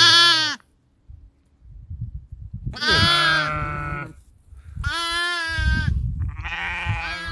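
Newborn lamb bleating: four high, wavering calls about a second each, with short gaps between them.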